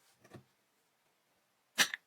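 Two knocks with near silence between: a faint dull one, then a single sharp, loud knock near the end.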